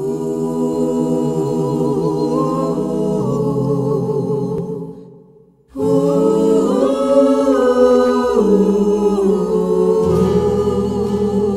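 An a cappella choir singing in Tahitian, holding long, sustained chords; the voices fade out about five seconds in and a new phrase begins a moment later.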